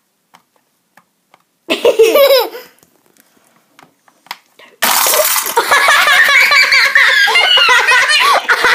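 Faint ticks of plastic jigsaw pieces being pressed into a 3D puzzle ball, and a short burst of laughter about two seconds in. About five seconds in, loud, high-pitched laughter starts suddenly and carries on.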